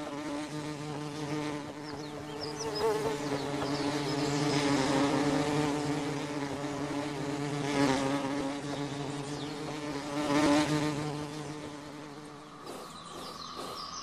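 A flying insect's wings buzzing, a low steady hum that wavers slightly in pitch and swells louder twice as it comes close. Near the end the buzz drops away and a higher steady tone takes over.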